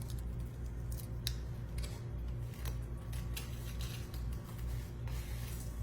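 Scattered short, crisp clicks and scrapes, a few each second, over a steady low hum: kitchen handling noises.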